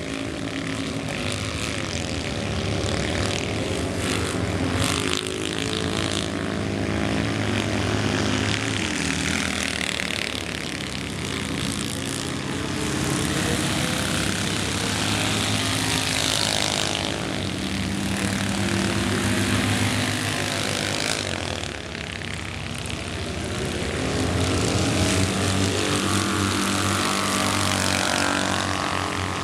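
Several Citroën 2CV cross racing cars with air-cooled flat-twin engines revving hard as they race. Their buzzing pitches overlap and keep rising and falling through the gears and bends.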